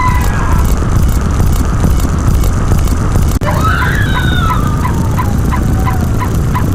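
A loud low rumble. About halfway through, a sudden cut brings in a bird's gobbling call: one falling call broken into quick pulses, lasting about three seconds.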